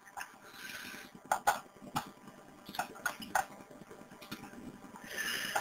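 Quiet computer mouse clicks, about half a dozen short sharp clicks at uneven intervals, over faint room hiss.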